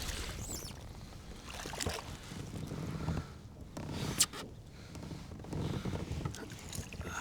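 Water lapping and slapping against a kayak hull, in uneven swells, with a few light knocks and clicks.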